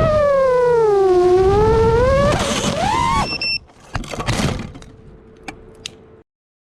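iFlight Chimera7 FPV quadcopter's motors and props whining, the pitch dipping and then rising again with throttle. About two seconds in, this breaks into rough crashing noise and a few sharp knocks as the drone hits a tree. Then the sound cuts off suddenly.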